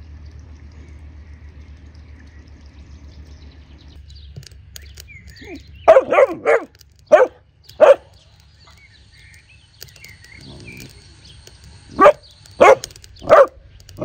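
A dog barking in two bouts of sharp barks: about five barks some six seconds in, then four more near the end.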